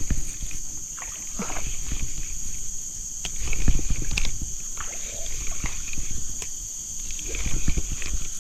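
Water sloshing and splashing with low knocks as a hooked fish is fought at the surface, over a steady high drone of forest insects.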